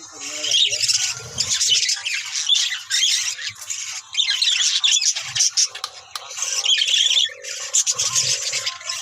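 A flock of budgerigars chattering and squawking, many shrill calls overlapping in loud waves.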